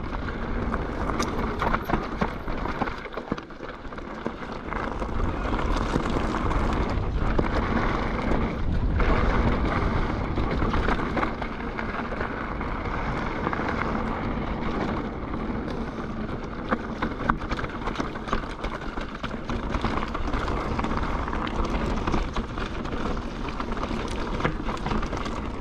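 Mountain bike riding fast down a gravel forest trail: tyres rolling over loose stones with many small clicks and knocks from the bike rattling, and wind on the microphone.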